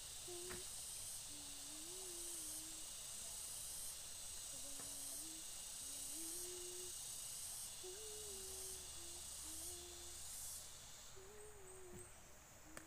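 A person softly humming a slow tune in a low voice, the notes stepping up and down, over a steady high hiss.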